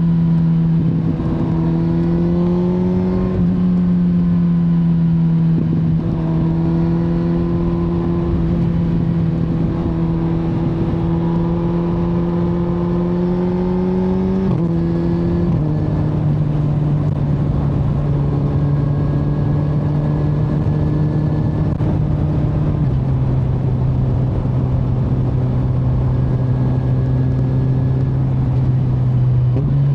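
2025 Kawasaki Z900's 948 cc inline-four running at steady cruising revs under way. Its note holds level for long stretches, then steps down in pitch a few times in the second half.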